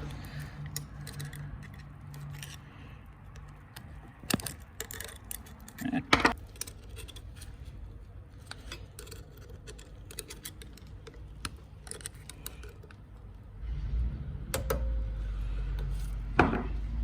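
Small metallic clicks and clinks of a screwdriver working a master-link retaining clip onto a minibike's roller chain, with a few sharper snaps, about four, six and sixteen seconds in. A low steady rumble comes in near the end.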